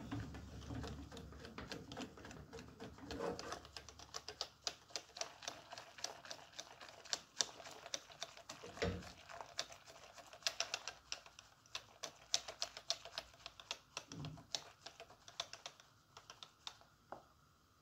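Wire whisk beating a thin mixture in an aluminium saucepan, its wires clicking rapidly and irregularly against the metal sides, with a couple of duller knocks of the pot.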